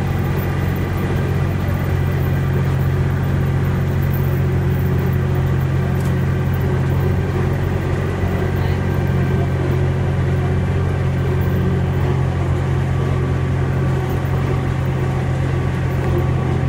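Steady low rumble and drone of a moving train, heard from aboard while it rolls along.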